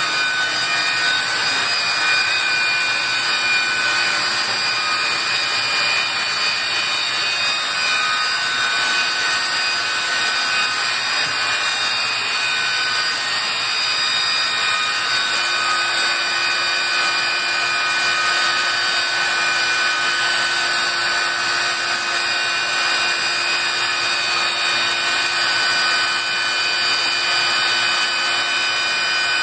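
Bee vacuum running steadily with a whining motor while its hose sucks honey bees off exposed comb in a wall cavity. A further low hum joins the whine about halfway through.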